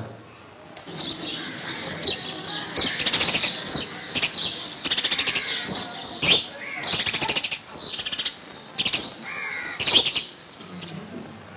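Birds chirping and calling in a lush yard, a busy run of short, quick, high chirps and trills starting about a second in.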